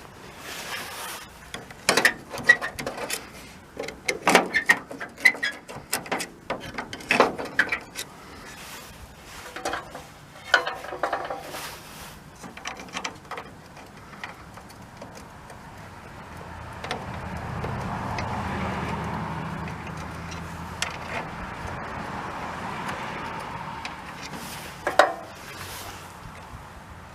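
Irregular metallic clicks and knocks of hand tools and parts while the rear cargo door handle mechanism of a VW split-window bus is screwed in place. In the second half a steady low rumble comes up and holds for several seconds, and one more sharp knock comes near the end.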